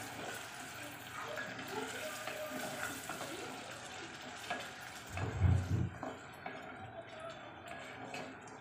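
Onion, tomato and green chillies frying in oil in an open pressure-cooker pot, with a wooden spatula stirring and scraping them against the pot. A dull low thump about five seconds in.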